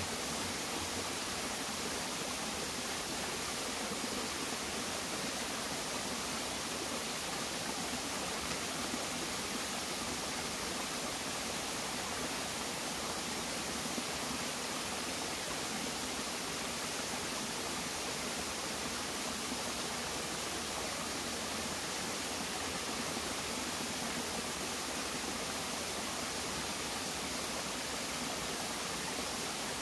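Small, shallow forest stream running over rocks with a steady, even rush of water.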